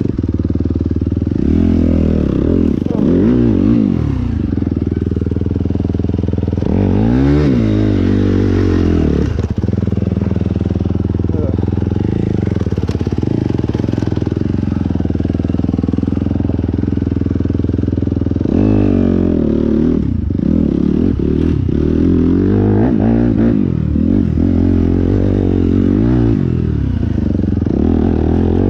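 Motorcycle engine running on the move, its pitch repeatedly climbing and falling as the throttle is opened and eased off through gear changes.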